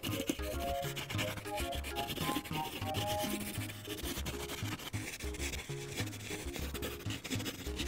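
Prismacolor colored pencil scribbling back and forth on paper, a continuous run of quick rubbing strokes as a background area is shaded in. Light background music with a melody and bass line plays underneath.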